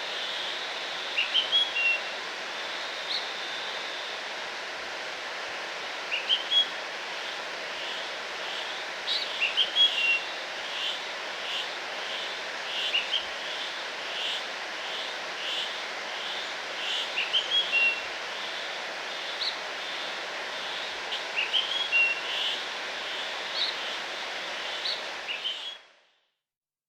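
Steady rushing of a waterfall with small birds chirping over it in short runs of quick, high notes. The sound cuts off abruptly near the end.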